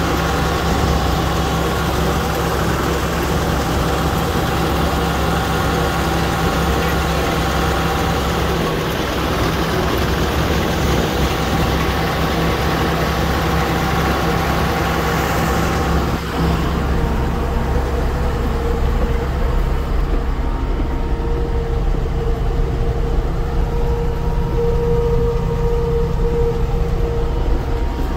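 John Deere 6520 tractor's six-cylinder diesel engine running steadily under load while pulling a trailed field sprayer. About halfway through, the high hiss drops away, leaving a lower, duller engine drone.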